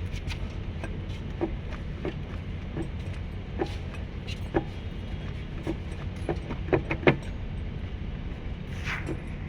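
Porsche Cayman suspension knocking and rattling while the car is driven: irregular short knocks over a steady low road rumble, with the loudest cluster about seven seconds in. The knocks are the suspension noise problem the car has.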